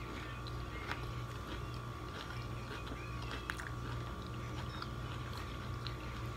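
A person chewing a mouthful of tuna sandwich with faint, scattered wet mouth clicks, over a steady low electrical hum.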